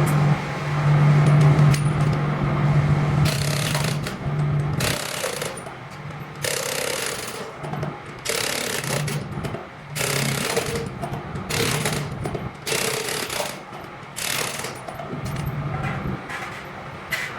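Pneumatic impact wrench hammering in repeated short bursts of about a second each, typical of loosening or running wheel nuts during a forklift tyre change. A steady low hum runs underneath at first.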